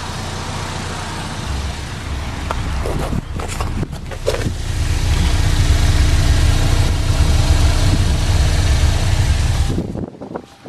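Chevy Equinox's 2.4-litre four-cylinder engine idling: a steady low hum that grows louder about halfway through and drops off suddenly near the end.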